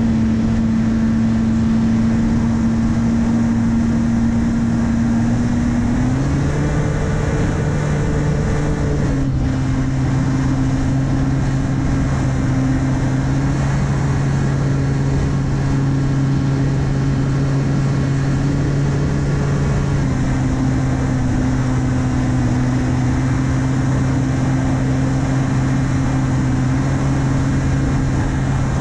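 S800 flying wing's 2212 1400KV brushless motor spinning an 8x6 APC propeller in flight, a steady droning hum over a constant rush of air. The pitch steps up about six seconds in as the throttle is raised, falls back about three seconds later, and shifts slightly again near the middle.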